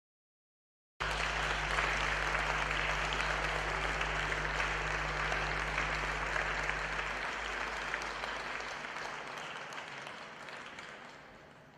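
Arena audience applauding, cutting in abruptly about a second in as steady, dense clapping, then dying away over the last few seconds.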